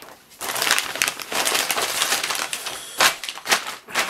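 Packaging being handled and rummaged through: a dense crinkling rustle for most of the first three seconds, then a few separate sharper crinkles.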